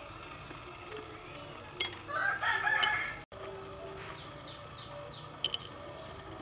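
A rooster crows once, about two seconds in, for about a second. A few light clicks of raw cashew nuts being picked over on a wooden chopping board.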